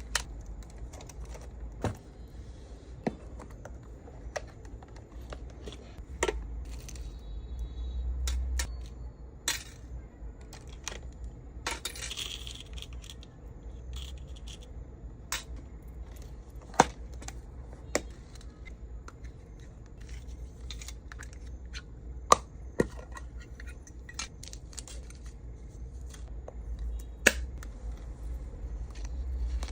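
Small hard resin accessories clicking and tapping as they are handled and packed, with scattered sharp taps, a few louder ones, and a brief rustle about twelve seconds in. A steady low hum lies under it.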